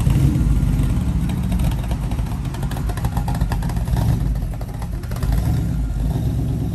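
Hot rod roadster's engine running with a deep low rumble as the car pulls away slowly.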